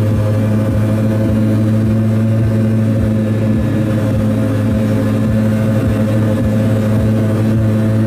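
Piaggio Ape 50's 50 cc two-stroke single-cylinder engine running at a steady speed under way, an even drone that neither rises nor falls.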